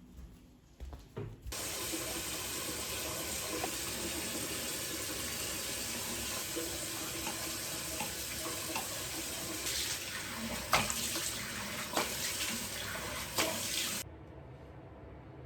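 A water tap running into a sink. It turns on about a second and a half in and shuts off sharply near the end, with a few knocks and clatters in the last few seconds.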